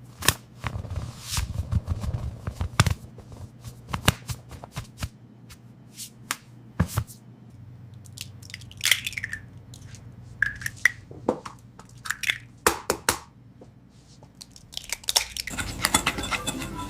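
A run of sharp clicks, taps and crinkling noises from objects being handled, with a few short squeaks in the middle; music comes back in near the end.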